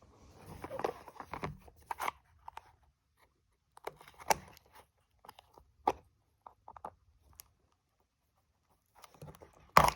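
Packaging being opened by hand: scattered crinkling, tearing and small clicks, with a few sharper knocks and a louder one near the end.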